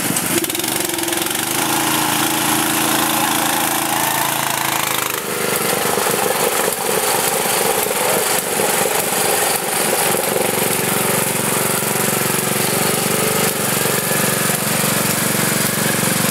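Riding lawn mower engines running as the mowers drive through a mud hole full of water. The engine note changes abruptly about five seconds in.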